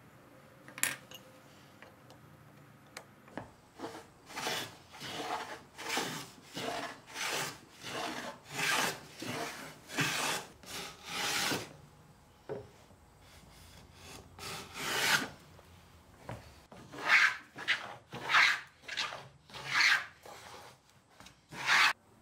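Wooden moving fillister plane cutting a rabbet along the edge of a maple panel: a sharp tap about a second in, then a long run of short, quick plane strokes, each a brief shearing swish of the blade through the wood. After a pause comes one longer stroke, then another quick series of strokes.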